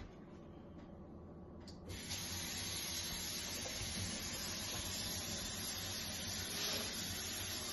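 A steady, even hiss comes on abruptly about two seconds in and keeps going without change.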